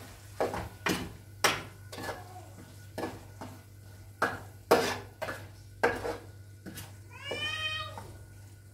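A run of sharp, irregular knocks and clinks, roughly one or two a second, and an animal's drawn-out cry about seven seconds in that lasts about a second.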